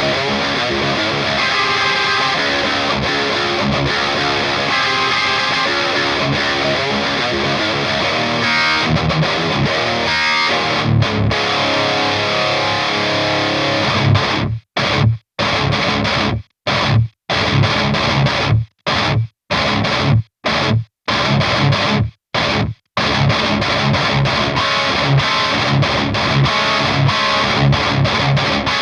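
Heavy metal song with high-gain distorted electric guitars through a Diezel VH4 tube amp, with drums. Midway comes a stop-start passage of short tight hits, each cut off suddenly into silence, about eight times, before the full riff resumes.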